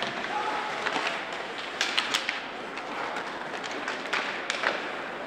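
Ice hockey play: a steady hiss of skates on the ice, broken by sharp clacks of sticks, puck and boards, several in quick succession about two seconds in and again around four and a half seconds.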